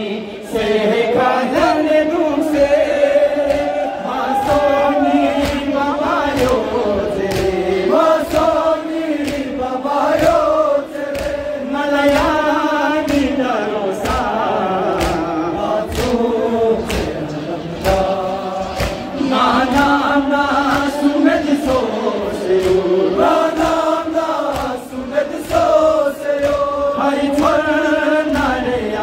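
Men chanting a noha, a Muharram lament, together, with the slaps of chest-beating (sinezani) keeping a steady beat under the singing.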